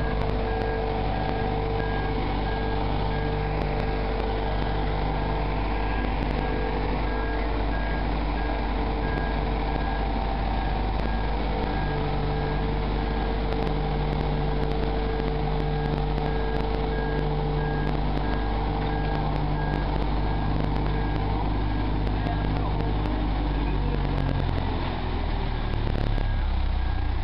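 Boat travel lift's engine running steadily as the lift drives along carrying a hull, with its warning beeper sounding at an even pace over it; the beeping fades after about ten seconds, and the engine note shifts near the end.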